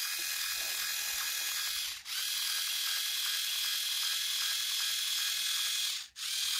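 Conair Quick Twist hair-twisting tool running, a steady high-pitched mechanical whir as it spins two strands of yarn fringe together. It stops for a moment about two seconds in and again near the end, then runs on.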